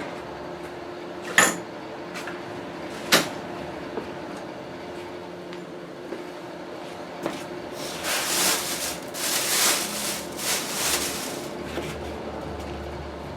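Handling noise from unpacking machine parts: two sharp knocks of parts being set down, then a few seconds of packaging rustling from about two-thirds of the way in.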